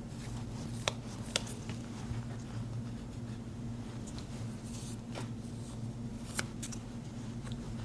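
The rough side of a nail buffer rubbed along a hair shear's steel blade to smooth a rough spot, giving faint scraping and handling noise with a few sharp ticks, over a steady low hum.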